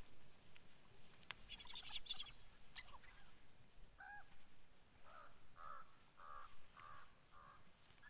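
Bird calls at a carcass: a high chattering burst about a second and a half in, a single call at about four seconds, then a run of five short calls at about two a second.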